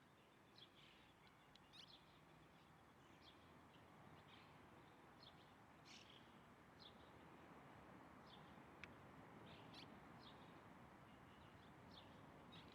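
Faint, short bird chirps, high-pitched and repeating irregularly about once a second, over a quiet background hiss.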